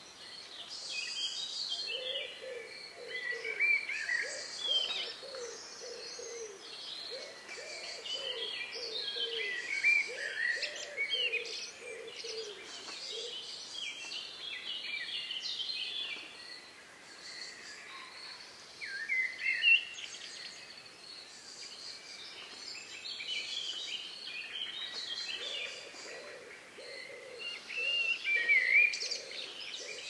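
Several forest songbirds singing at once: overlapping high chirps, whistles and trills, some loud and near. Beneath them, through the first part and again near the end, runs a steady series of low, evenly repeated notes.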